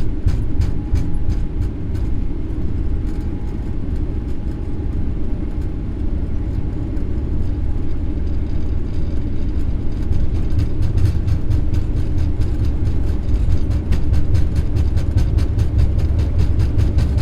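Boeing 777-300ER accelerating down the runway at takeoff thrust, heard from the cockpit: a steady low rumble of the GE90 engines and rolling gear. Rhythmic thumps from the wheels on the runway come faster and the rumble grows louder as speed builds.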